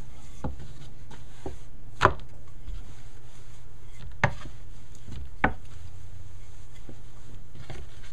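Wooden rolling pin knocking and bumping on a pastry board while a stuffed roti is rolled out: several sharp knocks at irregular intervals, the loudest about two seconds in.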